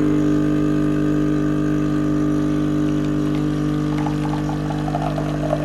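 Espresso machine's pump running with a steady buzzing hum as coffee streams into a glass. A sputtering, gurgling noise joins in about four seconds in.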